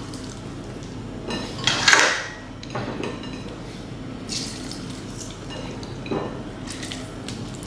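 Hands working over a glass blender jar, squeezing lime and dropping ingredients in: a few light knocks and clinks against the glass, the loudest about two seconds in.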